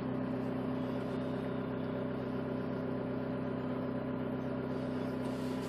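Chevrolet Captiva's 2.2-litre diesel engine idling steadily and evenly, heard from inside the cabin with the heater fan blowing, shortly after a cold start at −17 °C.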